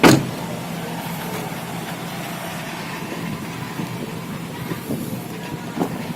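A Honda Jazz car door shut with a single loud thud right at the start, then a steady low hum with a few faint clicks near the end.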